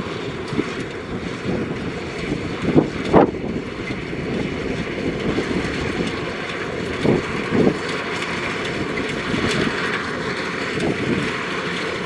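Kubota DC-105X combine harvester running steadily while cutting rice, its engine and threshing gear making a constant mechanical clatter, with a few louder knocks about three and seven seconds in.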